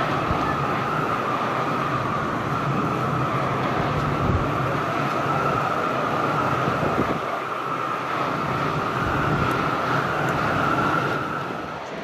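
Jet noise from an Airbus A330-343's Rolls-Royce Trent 700 engines as the airliner rolls out on the runway after landing. It is a steady roar with an even, high whine over it, and the whine drops away near the end.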